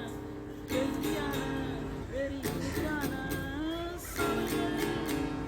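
Background music led by a plucked and strummed acoustic guitar, with a melody line gliding between notes.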